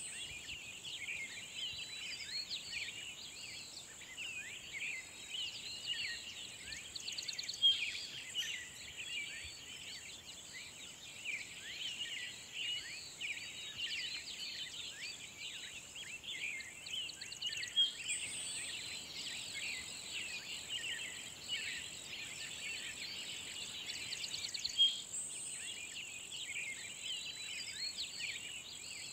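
Outdoor nature ambience: a chorus of many birds singing, with overlapping chirps and whistles, over a steady high-pitched insect buzz.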